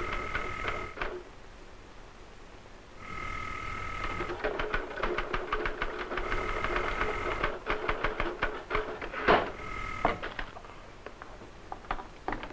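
Desk telephone bell ringing in four rings about three seconds apart, while a manual typewriter's keys clatter quickly. Near the end the receiver is lifted from its cradle with a clack.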